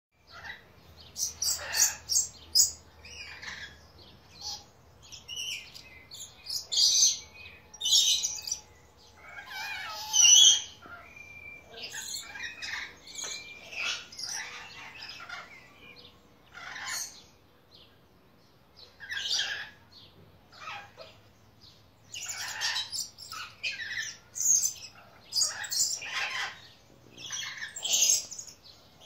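Blue-streaked lories (Eos reticulata) calling: a string of short, shrill chirps and screeches, loudest a third of the way through, with a quieter gap about two-thirds through before the calls pick up again.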